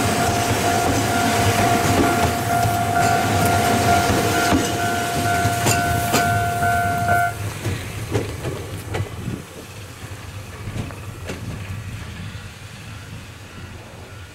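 Ohmi Railway electric train passing close by and slowing into the station, its wheels clicking over rail joints. A steady high ringing tone runs over the passing noise and cuts off suddenly about seven seconds in. After that the train is much quieter as it rolls to a stop.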